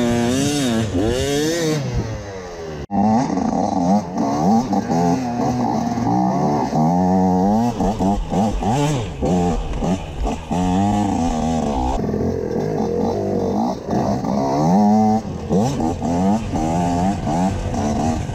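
Enduro dirt bike engine revving up and down over and over as the throttle is worked on and off, with the pitch rising and falling every second or so. There is a sudden break about three seconds in.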